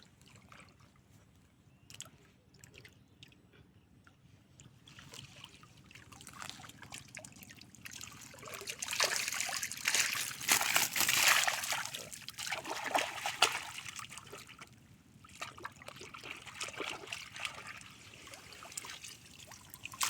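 Water trickling and splashing as a Chinese collapsible trap net (China duari) is hauled out of the water and water drains through its mesh. It is faint at first, builds from about five seconds in, is loudest in the middle, then eases and picks up again near the end.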